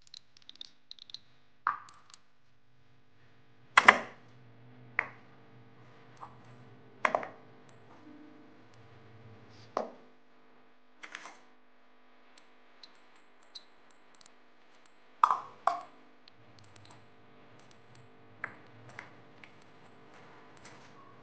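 Whole ingredients such as shallots dropped into the clear plastic cup of a small electric chopper: a dozen or so sharp knocks and clatters at irregular intervals, a second or more apart. A faint steady hum runs beneath them.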